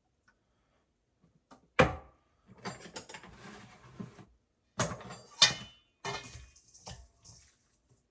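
Kitchen clatter of dishes and utensils being handled: a few sharp knocks, the loudest about two seconds in and two more close together around five seconds, with lighter rattling between and a brief ringing after the last knock.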